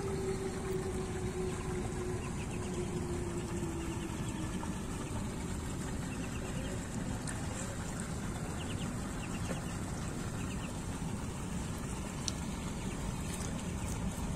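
Ducklings peeping in short, rapid little bursts of high notes, several times, over a steady background noise. A low steady tone fades out about four seconds in.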